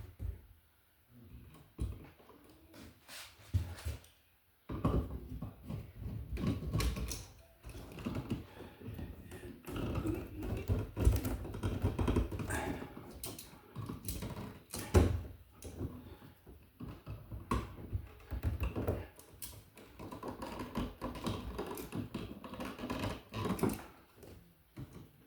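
Irregular clicks, taps and rattles of a wall receptacle and tools being handled, sparse at first and much busier from about five seconds in.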